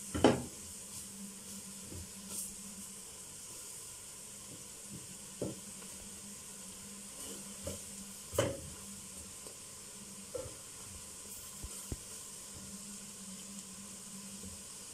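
Shrimp, crab sticks and vegetables sizzling in a stainless steel pot as they are stirred, with a few knocks of the spatula against the pot, the loudest right at the start. A steady low hum runs underneath.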